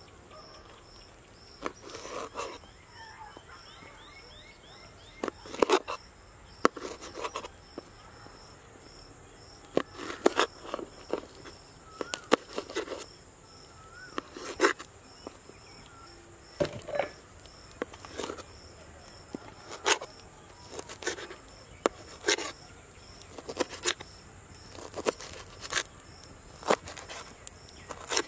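Kitchen knife chopping green chillies and coriander on a wooden cutting board: irregular sharp knocks, sometimes in quick runs of two or three. Insects chirp steadily in the background, one with an even pulsing chirp.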